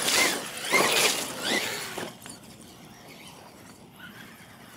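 Radio-controlled monster truck's motors whining in three short throttle bursts, the pitch sweeping up and down with each one.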